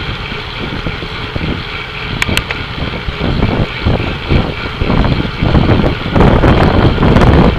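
Wind buffeting the microphone of a REPLAY XD 1080 action camera riding with a road-racing bike pack, over a steady rush of road and tyre noise. The buffeting grows louder in the last couple of seconds, and a couple of sharp clicks come about two seconds in.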